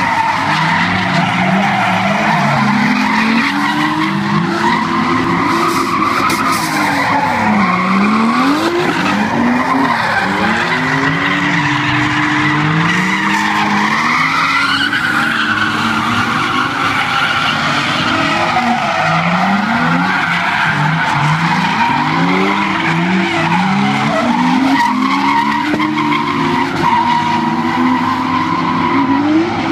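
Several drift cars sliding sideways under power: engines revving up and down over and over, with continuous tyre squeal.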